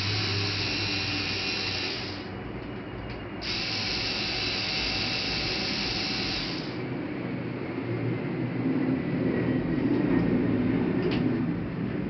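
A small power tool's motor whirring in two bursts of about two and three seconds, with a short pause between them. After that comes a lower, rougher running sound.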